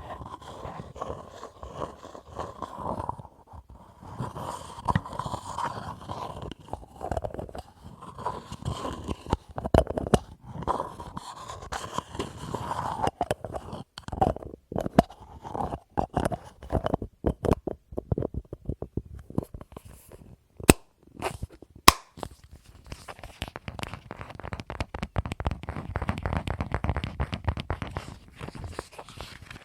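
Fingertips tapping, scratching and clicking on small objects and their lids: a run of irregular quick taps, with a ringing tone through roughly the first half, a few sharp single clicks later, and a fast, dense patter of taps near the end.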